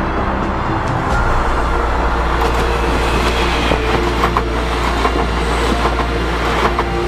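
Electric multiple-unit passenger train passing close by at speed. Its running noise rises about a second in, with sharp wheel clicks over the rail joints as the cars go by.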